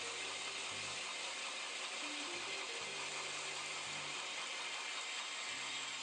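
Belt grinder's abrasive belt grinding the bevel of a stainless steel knife blade held in a bevel jig: a steady, even hiss.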